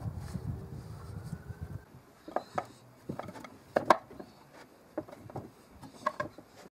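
A wooden drawer handled on a table, a low rumble for about two seconds, then scattered sharp clicks and knocks as a hand screwdriver drives a brass screw from inside the drawer into a knob.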